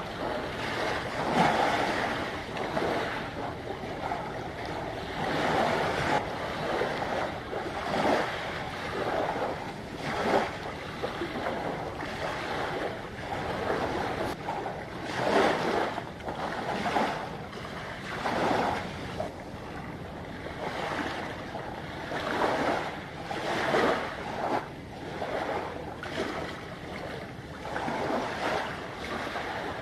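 Small waves washing in, swelling and falling back every second or two, with wind on the microphone.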